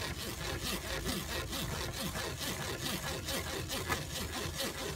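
A spoon scraping quickly back and forth, pressing blended lentil soup through a metal strainer in repeated rubbing strokes.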